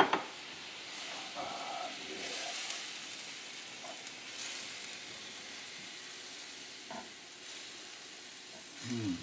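Cream sauce of heavy cream and chicken broth sizzling steadily in a skillet over a gas flame, with a spatula scraping and stirring through it. A sharp knock right at the start is the loudest sound.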